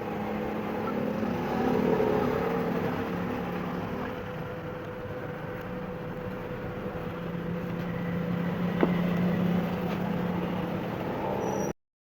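Steady mechanical hum with low droning tones, one sharp click about nine seconds in, cutting off abruptly just before the end.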